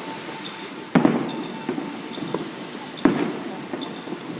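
Fireworks going off: two sharp bangs about two seconds apart, each followed by an echoing tail.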